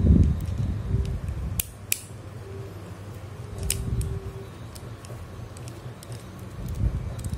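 Small screwdriver working a screw out of a spinning reel's body. Hands handle the metal reel with a low rumble, and there are a few sharp metallic clicks.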